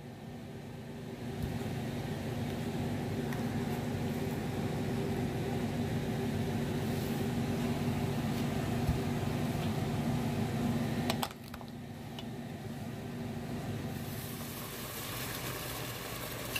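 Steady low mechanical hum, such as a fan or motor makes, that cuts off abruptly with a click about eleven seconds in, leaving a quieter hiss.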